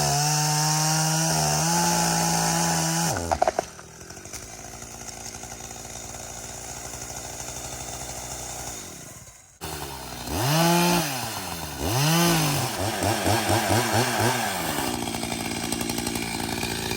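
Gas chainsaw running at full throttle through a cut for about three seconds, then dropping to idle. Later it is revved up and down several times before settling back to a steady run. The cut separates the fallen trunk from its stump.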